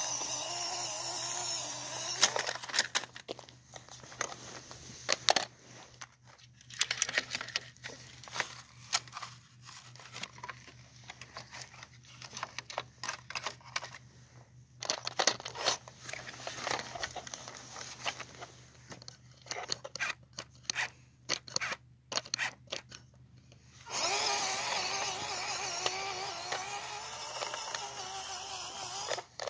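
Upgraded electric motor and geartrain of a WPL C24 RC truck whining, held steady with a slightly wavering pitch at the start and again from about three quarters of the way through, with many short stop-start bursts of motor whine in between.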